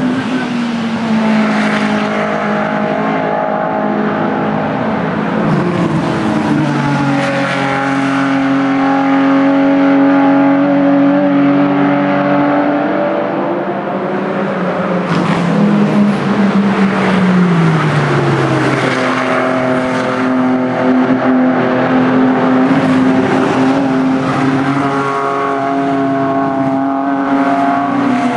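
Racing car engines running hard on track, one long held engine note after another, with the pitch gliding down as cars pass by or lift, most clearly about 18 seconds in.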